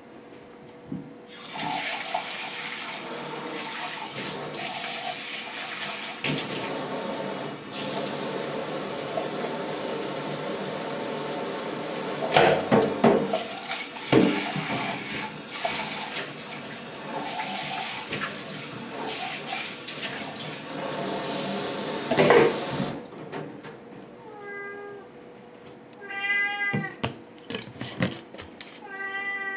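A kitchen tap runs into a stainless steel sink for about twenty seconds, with a few louder knocks while hands are washed under it, then it is turned off. A cat meows several times near the end.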